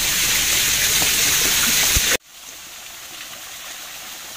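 Steady loud hiss of water, with a few soft footstep knocks on stone steps. About two seconds in it cuts off sharply, and a quieter, even patter of water running down a stone wall fountain follows.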